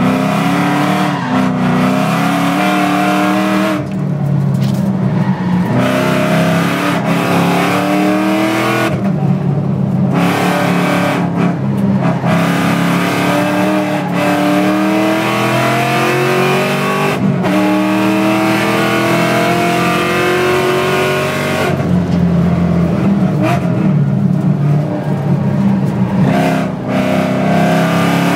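Ford Shelby GT500's V8 engine pulling hard through the gears: the revs climb over a few seconds and fall back at each upshift, again and again, with a few stretches of lower, steadier revs between the runs.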